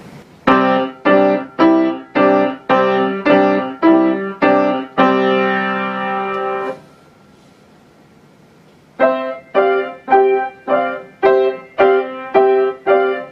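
A student playing her own short elephant piece on the piano: slow, evenly spaced chords struck about twice a second, each phrase ending on a held chord, with a pause of about two seconds between the two phrases.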